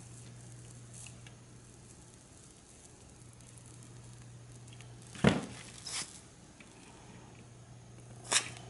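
Rubber desoldering bulb squeezed and let go at a hot solder joint, giving short hissing puffs of air: the loudest about five seconds in, a smaller one just after, and another near the end. A low steady hum runs underneath.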